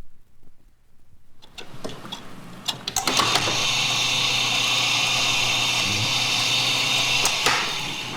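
A few clicks, then a machine starts and runs steadily for about four and a half seconds, with a low hum under a dense high whir, and stops sharply near the end.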